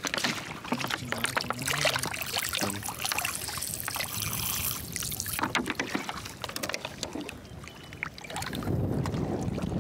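Water poured from a plastic bag splashing and trickling onto an opened oyster on the rocks for a second or two, about four seconds in. Scattered clicks and taps are heard around it.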